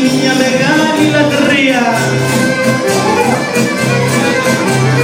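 Live Greek folk dance music: a bowed fiddle-type melody over a steady pulsing bass beat, purely instrumental.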